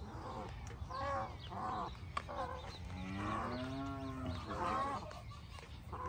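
Cow mooing once, a long call that rises then falls, about halfway through, amid farmyard fowl calls.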